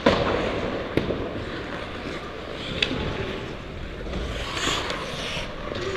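Ice skates gliding and scraping on the rink, with air rushing over a helmet-mounted microphone. A sharp knock comes right at the start and a smaller one about a second in.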